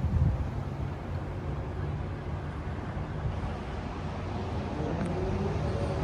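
Steady low drone of a running motor vehicle engine.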